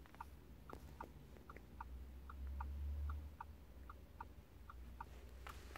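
Level crossing audible warning alarm sounding faintly through the car: a steady run of short high beeps, about three a second, as the crossing lights flash. A low rumble swells briefly around the middle.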